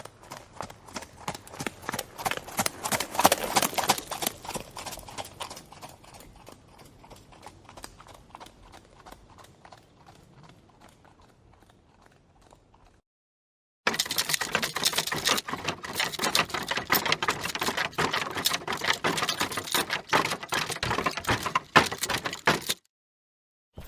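Horse galloping, its hoofbeats a rapid rhythm of strikes. The hoofbeats grow louder to a peak about three seconds in, then fade away over several seconds as the horse passes and goes off. After a short silence, a second run of loud, steady galloping hoofbeats starts suddenly and cuts off near the end.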